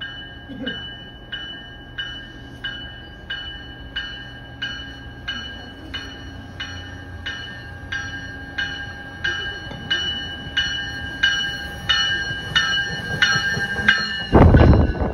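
An approaching MBTA commuter rail train's bell rings about one and a half strokes a second, growing louder as the train nears, over a low rumble. Near the end there is a loud rush as the leading bi-level cab car passes close by.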